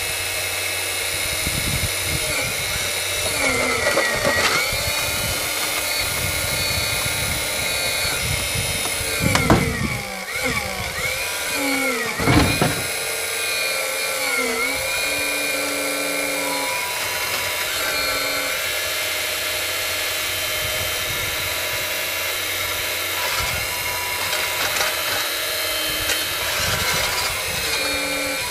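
Hydraulic pump of a radio-controlled 1:5 scale Menzi Muck A91 walking excavator running with a steady high whine. Its pitch dips several times as the boom and bucket move under load. Two louder rough scraping noises come around ten and twelve seconds in as the bucket works the soil.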